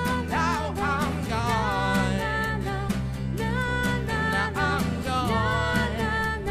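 Background music with a steady beat and a wavering melody line.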